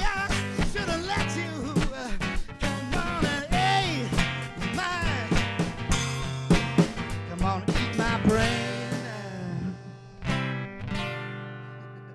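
Live acoustic guitar and percussion playing out the end of a rock song, with wordless gliding singing over steady drum strikes. The drums stop about nine seconds in and a final strummed guitar chord rings out and fades.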